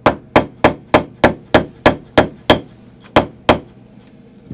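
Tack hammer driving a brad through upholstery fabric into a chair's wooden arm frame: about eleven quick, sharp strikes at roughly three a second, with a short pause before the last two, stopping about three and a half seconds in.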